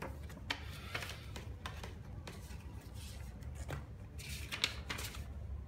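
Paper sheets rustling and crackling as they are handled and folded, in short scattered bursts with a denser rustle near the end, over a low steady hum.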